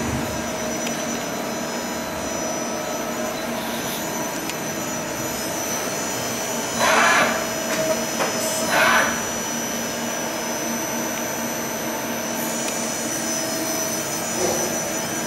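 Nakamura-Tome TMC-15 CNC lathe with its spindle running: a steady whir with a thin high whine in it, and two brief louder rushes of noise about seven and nine seconds in.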